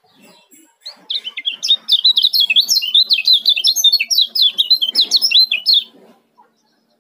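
Kecial kuning (lemon-bellied white-eye) giving its fast, tightly packed 'ciak' chirping: a rapid run of short, high, falling notes that starts about a second in and stops shortly before the end.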